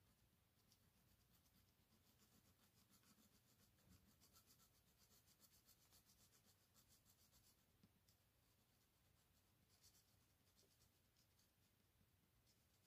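Faint scratching of a pencil shading on paper in quick repeated strokes, a lull, then a short burst of strokes.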